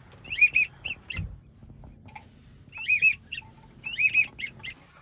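Whistled pintail calls: a rolling two-note 'preep-preep' followed by shorter peeps, repeated in three bursts.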